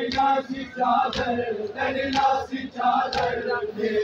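A crowd of men chanting a Muharram mourning lament (noha) together, with a sharp beat about once a second keeping time.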